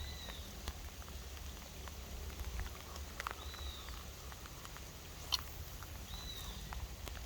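A bird calling three times, a short arched whistle that rises and falls, about every three seconds, over a low steady rumble and scattered light ticks. A single sharp click comes a little past five seconds in.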